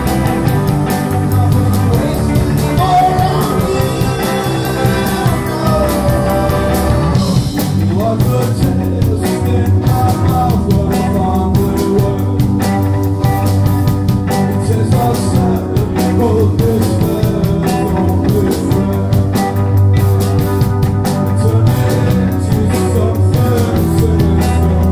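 Live rock band playing: drums, electric guitar and keyboards. The drums and cymbals come in fuller about seven seconds in.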